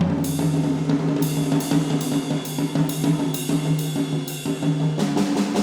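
Drum kit playing, with cymbal strokes about twice a second over a steady low held pitch. The cymbal pattern stops near the end, and a new stroke comes in just after.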